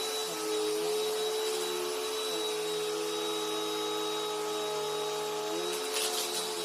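Bissell PowerLifter Bag Pet upright vacuum cleaner running steadily while picking up sawdust: a constant motor whine over a lower hum that shifts in pitch every second or two as the load changes, with a brief crackle near the end.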